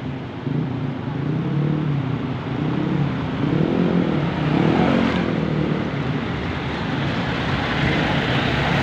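Heavy dump trucks' diesel engines running on a road as they pull away and pass close by, with engine pitch rising and falling a few times around the middle.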